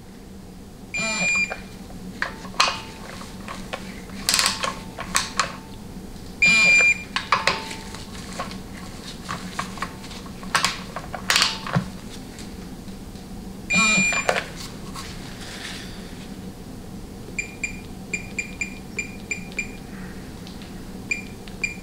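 A digital torque wrench ratcheting transmission valve-body bolts down to 60 inch-pounds. A long electronic beep sounds three times as a bolt reaches the set torque, with bursts of ratchet clicks between the beeps. A run of short beeps follows near the end.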